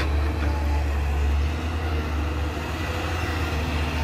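Caterpillar 320B excavator's diesel engine running under load as it digs, a steady low drone that is a little stronger for the first second and a half.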